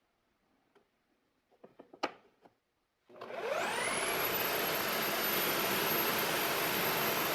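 A few light clicks and a sharp knock, then about three seconds in an electric motor is switched on: its whine climbs quickly as it spins up, then it runs steadily and loud.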